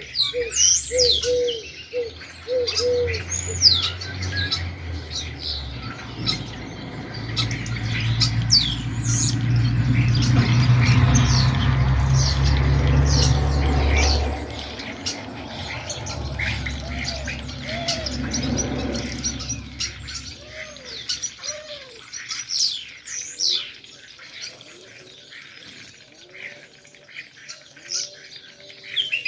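Sparrows chirping busily, with pigeons cooing in low repeated notes at the start and again later. Under them a low steady rumble swells in the middle and fades out after about twenty seconds.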